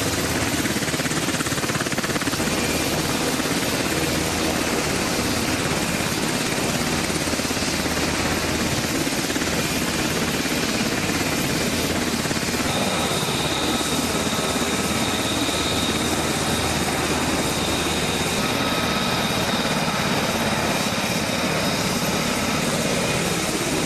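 Sikorsky HH-60 Pave Hawk helicopters running on the ground with rotors turning: a loud, steady rush of rotor and twin turboshaft engine noise. About halfway through, a steady high-pitched whine joins in.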